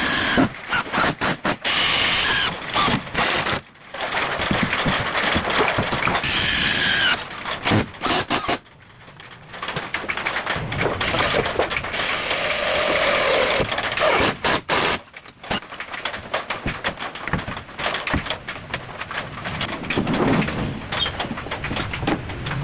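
Workshop work noises: a busy run of knocks, clatter and scraping, with two brief pauses.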